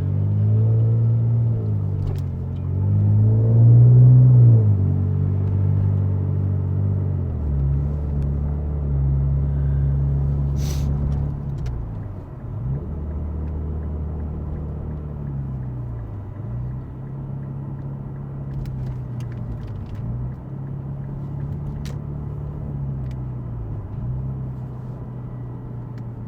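Infiniti Q60's E85-tuned twin-turbo 3.0-litre V6 heard from inside the cabin with the exhaust valves closed. Its pitch rises and falls over the first few seconds, then it settles into a steady cruise, dipping briefly a few times. There is a single sharp click near the middle.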